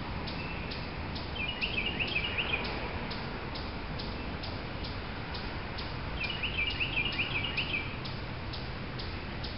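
A small songbird singing two quick twittering phrases, one about a second in and another about six seconds in, over a faint even ticking of about two or three ticks a second and a low steady outdoor rumble.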